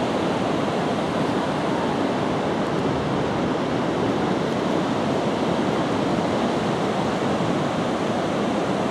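Pacific Ocean surf washing up on a sandy beach as the tide comes in: a steady, even rushing noise.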